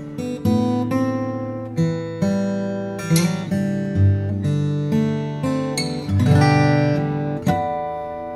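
Taylor 914ce LTD Sinker Redwood acoustic guitar played fingerstyle, a run of plucked chords and melody notes. Near the end a final chord is struck and left to ring out, fading away.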